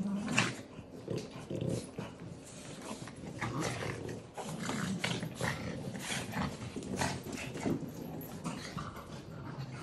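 French bulldogs and a Giant Schnauzer puppy play-fighting: growls and snorts come and go throughout, mixed with short scuffling sounds.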